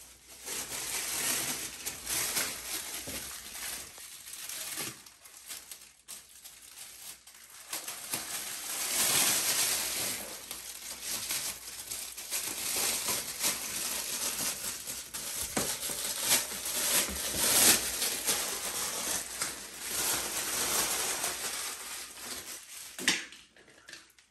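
Thin clear plastic bag crinkling and crumpling in irregular handfuls as it is unwrapped from a bidet seat's power cord and plug, with one sharp click shortly before the end.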